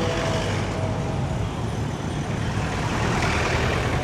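Busy street traffic: vehicle engines running steadily, making a continuous rumble.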